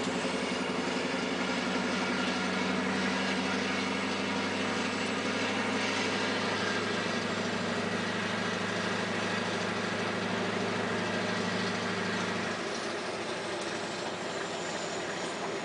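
Scania R560's straight-piped V8 diesel running steadily with a low drone, heard from inside the cab while the truck drives. About twelve and a half seconds in, the engine drone drops away, leaving a steady hiss.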